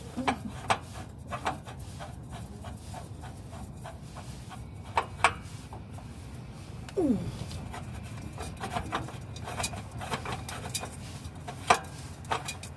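Scattered clicks and knocks of hands and a metal oil filter being worked into place under a pickup truck, with one short falling voice-like sound about seven seconds in.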